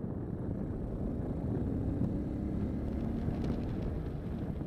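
Motorcycle on the move: its engine running under low wind noise on the microphone, with a faint steady engine tone coming through about halfway in.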